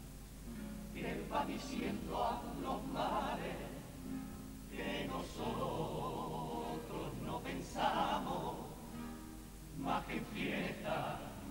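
Cádiz carnival comparsa choir singing together, with guitar accompaniment.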